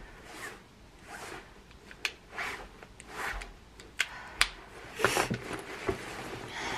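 Swishing rustle of a nylon down parka being handled and taken off, with a few sharp plastic clicks from a small case in the hands: one about two seconds in, then two close together about four seconds in. The heaviest rustling comes about five seconds in, as the coat comes off.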